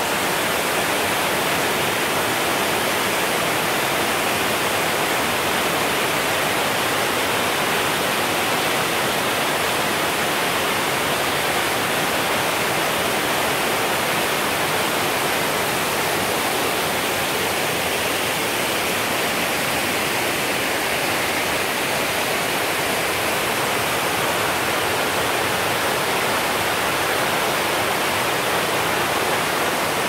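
A waterfall and the fast-flowing stream below it rushing over rocks: a steady, unbroken roar of white water.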